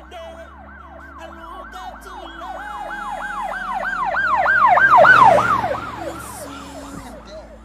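Emergency-vehicle siren in a fast yelp, its pitch sweeping up and down three to four times a second. It grows louder to a peak about five seconds in, then fades away.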